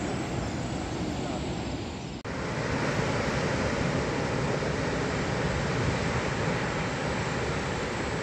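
Water pouring from the spillway gates of a concrete hydroelectric dam into the gorge below: a steady, even rush, broken by a brief dropout about two seconds in.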